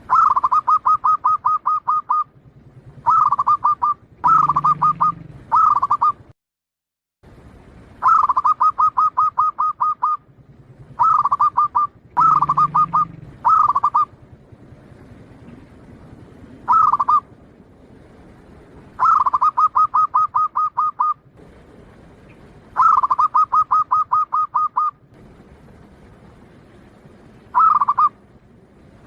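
Zebra dove (perkutut), local Bangkok type, singing: repeated phrases of quick, evenly spaced cooing notes, each phrase a half-second to two seconds long, with short pauses between them.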